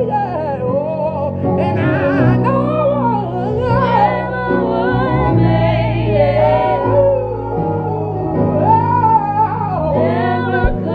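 Men singing a gospel song with wavering melismatic runs, over sustained chords.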